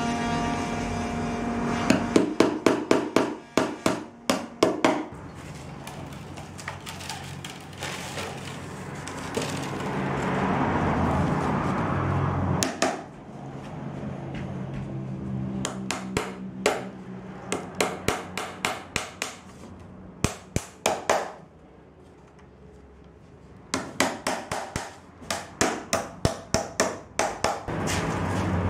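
Small hammer tapping on a round wooden basket base, in several quick runs of sharp taps, about three or four a second, with quieter pauses between.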